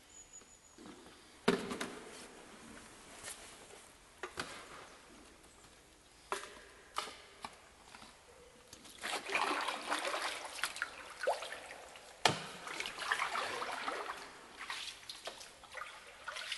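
Hand paddle strokes in canal water from an inflatable canoe, splashing and dripping in two longer spells past the middle, with several sharp knocks scattered through, inside a brick tunnel.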